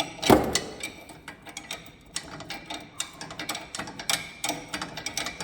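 Hand ratchet wrench clicking in quick, uneven runs as a stabilizer link nut on a car's front suspension is tightened, with one loud metallic knock just after the start.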